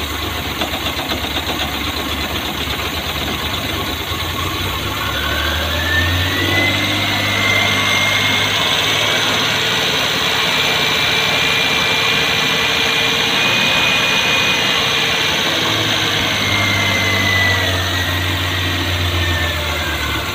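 Suzuki Multicab's carbureted F6A 12-valve three-cylinder engine at idle, hunting: about five seconds in the revs climb, with a whine rising alongside, hold higher for about ten seconds, then sink back down near the end. The idle rising and falling on its own is the fault being shown.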